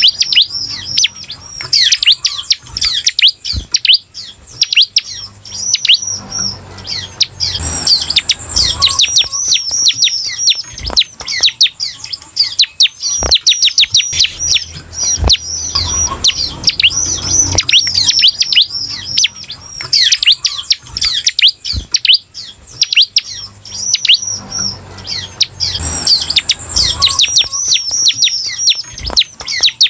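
Bar-winged prinia (ciblek) singing a continuous rapid chatter of high, quickly falling notes. Twice it gives a short, high, even buzz. A few dull knocks sound in between.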